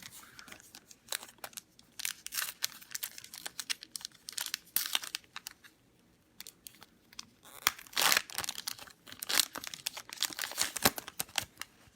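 Trading-card packaging being handled: irregular crinkling and tearing of wrapper material, with a short lull about halfway through.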